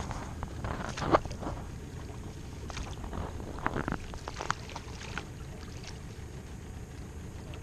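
Northern pike thrashing in a landing net at the side of an aluminum boat: scattered splashes and knocks, the loudest about a second in, over a low steady rumble.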